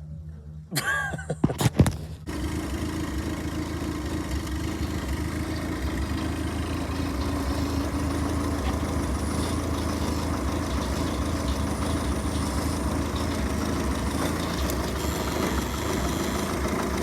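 An engine is started: about a second in there is a loud, short stretch of rising, uneven sound as it cranks and catches, then the engine settles into steady idling.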